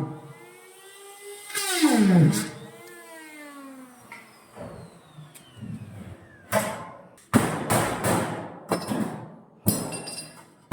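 Electric drill boring a hole in a steel tank. About two seconds in, the motor's whine falls steeply in pitch as it spins down. From about two-thirds of the way through there are several short, harsh bursts of drilling.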